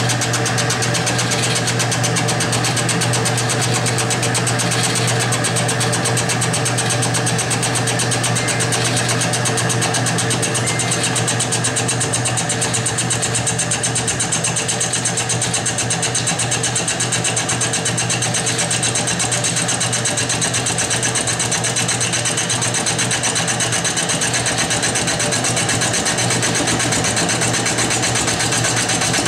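Shop Fox M1018 combo mill-lathe running steadily with a fly cutter turning at about 400 RPM, taking a cut on a cast aluminum workpiece: a constant motor hum with a rapid ripple and hiss from the cutter.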